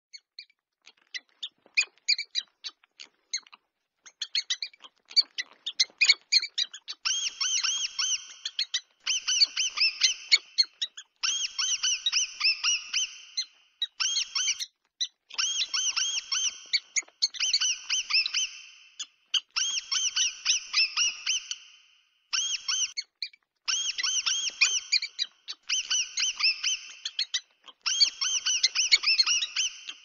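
Mouse squeak sound effects: quick, high-pitched squeaks, scattered and sparse at first. From about seven seconds in they come in dense runs of one to two seconds, separated by short gaps.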